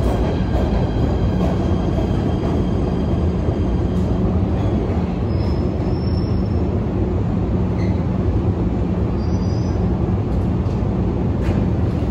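PATH rapid-transit train running, a steady rumble with motor hum, and a faint brief high wheel squeal about five seconds in and again near nine seconds.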